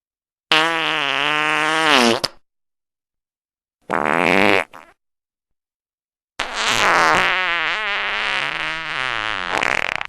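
Three fart sound effects, one after another with dead silence between them: a wavering pitched one of about two seconds that bends down in pitch at its end, a short one of about a second, then a long fluttering one starting about six seconds in.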